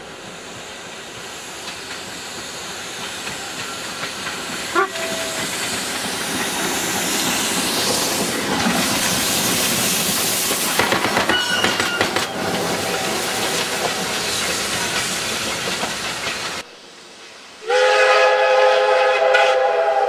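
A steam locomotive runs past close by with a noisy hiss and rattle that grows louder as it nears. Near the end a steam whistle blows a steady chord of several notes.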